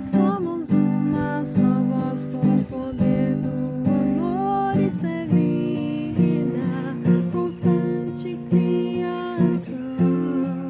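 Music: an acoustic guitar strummed in a steady rhythm, about one stroke every two-thirds of a second, with a melody line gliding above the chords.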